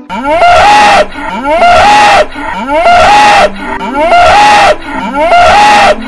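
A cow mooing five times in a row, the same loud call repeated about every 1.2 s, each opening with a rising note.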